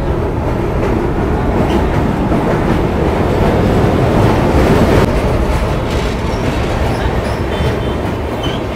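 Brahmaputra Mail express train running over the Ganga: a loud, steady rumble and rattle of the coach's wheels on the rails, swelling a little midway.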